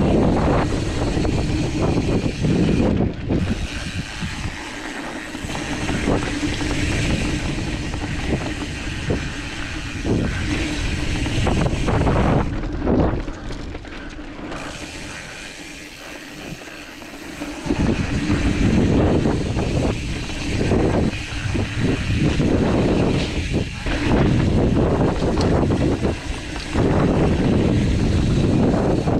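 Mountain bike ridden fast down a dirt singletrack: tyres rolling over dirt and the bike rattling over bumps, with wind noise on the camera microphone. It quiets for a few seconds around the middle, then picks up again.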